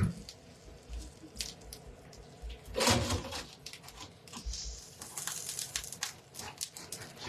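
Kitchen utensils clicking and knocking against cookware, with a louder clatter about three seconds in.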